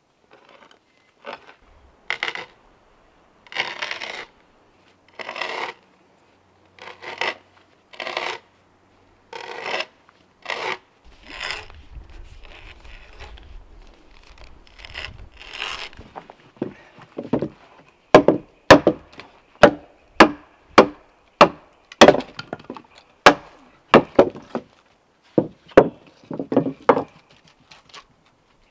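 Hand tools working green timber: first a series of separate scraping strokes on the wood, then a quick run of sharp strikes on wood, about two a second, which are the loudest sounds.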